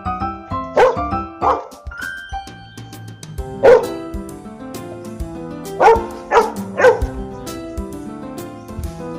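A dog barking in short single barks, about six times, over background music.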